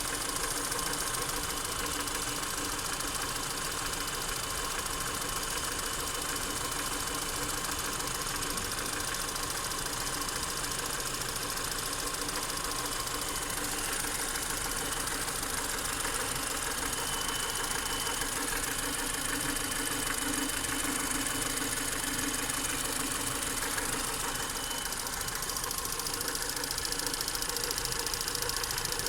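Ford Fusion EcoBoost engine idling steadily, carrying a strange noise of unknown cause that the owner has noticed for some time, with a thin steady high whine over the engine sound.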